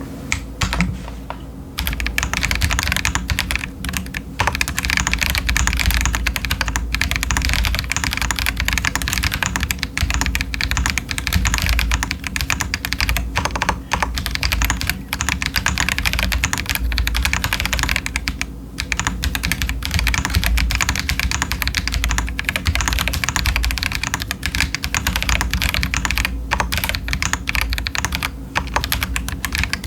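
Fast continuous typing on a stock Feker Alice 80 mechanical keyboard with TTC Chaotic Panda tactile switches and Cherry-profile doubleshot ABS keycaps: a dense, even clatter of keystrokes that settles in about two seconds in, with a few brief pauses.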